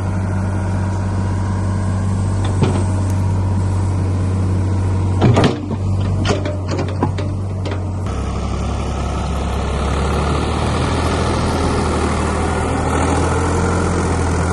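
Old Ford backhoe's engine running steadily, with a few sharp knocks between about five and seven seconds in. Its note shifts about eight seconds in.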